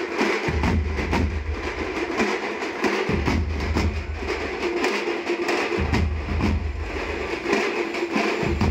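A street drum band beating large bass drums with sticks in a fast, steady, clattering rhythm, with deep booming strokes that come and go.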